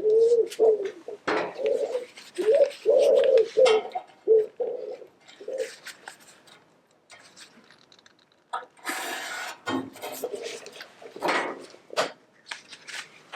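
A pigeon cooing in a run of low, repeated notes, followed from about nine seconds in by scraping and knocking sounds.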